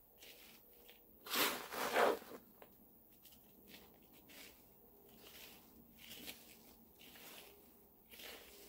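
Soil being worked into a pot by hand to build a mound in the middle, with gritty rustling and scraping. There are two louder bursts about a second and a half and two seconds in.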